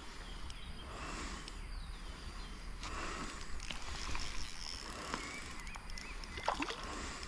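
River water sloshing and splashing in uneven swells, with a few small clicks and knocks.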